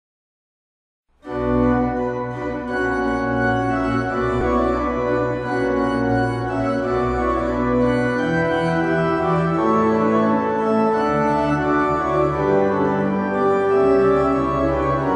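Church organ playing full, sustained chords over deep pedal bass notes, starting suddenly about a second in, with the chords changing every second or two.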